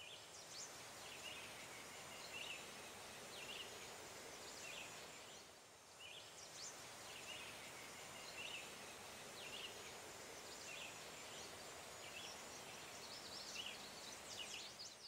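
Faint outdoor ambience: small birds chirping, short high chirps about once a second over a steady hiss.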